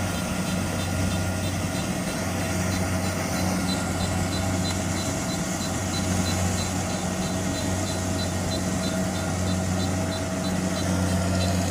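Kubota combine harvester's diesel engine running steadily at constant speed. A faint, evenly repeating high ticking joins in a few seconds in.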